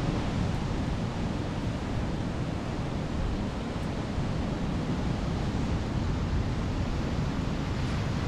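Steady wash of ocean surf breaking on a beach, with wind on the microphone adding a low rumble. There are no separate knocks or calls, just an even, continuous noise.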